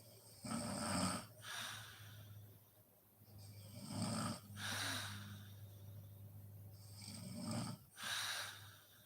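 A sleeping woman snoring: three snoring breaths, each a snore on the in-breath followed by a breathy out-breath, about every three and a half seconds.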